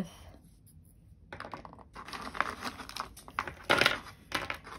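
Small metal watercolour paint tubes clicking and clattering against each other and the wooden palette as they are handled and gathered up. A run of light taps and rustles starts about a second in, with the loudest clatter near the end.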